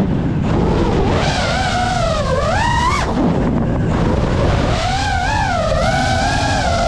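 FPV quadcopter's brushless motors whining, the pitch swooping up and down with the throttle. It dips sharply near the start and again about three seconds in, then climbs back, over a steady rush of wind.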